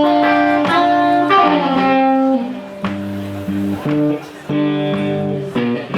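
Blues guitar playing a phrase of held single notes, one note gliding down in pitch about two seconds in.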